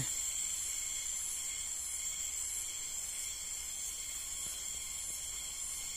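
Steady, high-pitched chorus of insects, several unbroken layered tones that hold even throughout.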